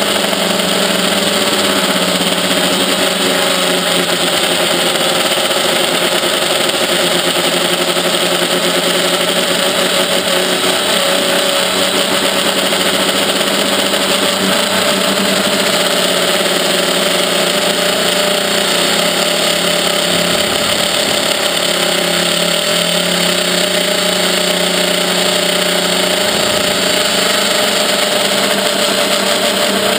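Quadrixette 30 FPV quadcopter's electric motors and propellers, recorded from the on-board GoPro: a steady, loud buzzing whine whose pitch wavers slightly with the throttle as it flies.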